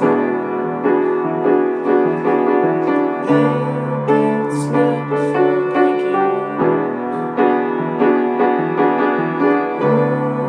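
Upright piano played solo, an instrumental passage of chords struck at a steady pulse over low bass notes held for a few seconds at a time.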